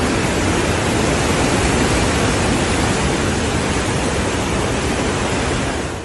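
Churning floodwater rushing in a fast, swollen river, a steady loud rush that fades out at the very end.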